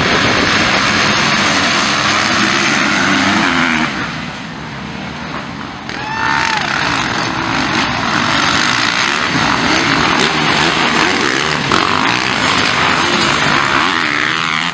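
Several motocross dirt bikes racing off the start, engines revving hard and rising and falling in pitch with throttle and gear changes. The sound dips a little about four seconds in, then comes back up as bikes pass close.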